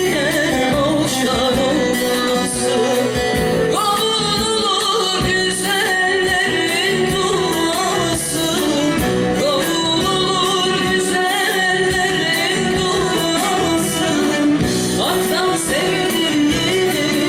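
A woman singing a Turkish folk song (türkü) with instrumental accompaniment, her voice carrying a wavering, ornamented melody without a break.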